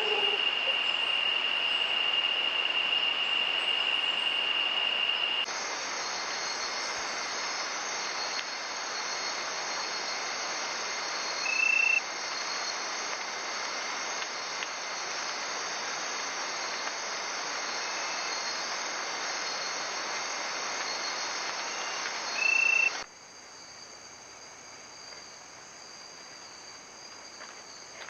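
Steady high-pitched drone of rainforest insects, changing abruptly in pitch and loudness about five seconds in and again near the end, where it turns quieter. Two short, louder chirps stand out over the drone, one near the middle and one just before the last change.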